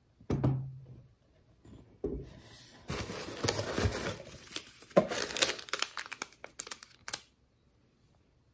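White tissue paper crinkling and rustling as it is handled inside a cardboard mailer box, with many small crackles. A dull knock against the box comes near the start, and the rustling stops a little after seven seconds in.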